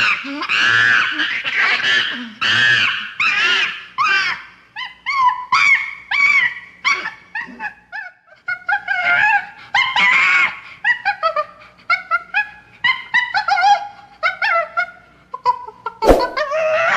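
Chimpanzee calls: long, harsh, high-pitched calls over the first few seconds, then a rapid string of shorter, wavering squeaks and whimpers. A sudden loud call or knock comes near the end.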